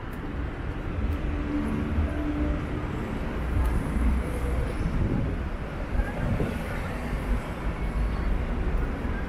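Busy city street ambience: a steady low traffic rumble with people talking nearby.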